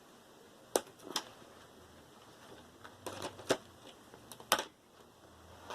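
A few sharp clicks and light knocks, spaced out over several seconds, from small scrap computer parts being handled and sorted by hand.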